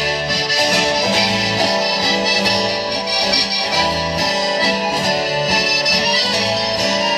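Amplified live band music without singing: an instrumental passage on keyboard and guitar, an accordion-like melody held over a bass line that changes notes at a steady pace.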